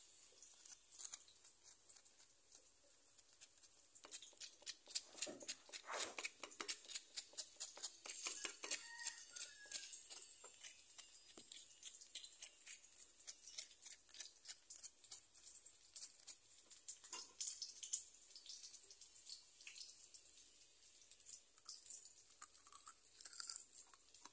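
Rapid crisp crackles and clicks, several a second, from freshly fried banana fritters being pressed and tapped with a metal spoon on a paper towel. They grow dense about four seconds in and thin out in the last few seconds.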